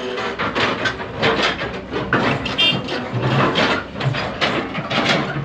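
Excavator working: a steady engine run under a dense, irregular clatter of clanks and knocks.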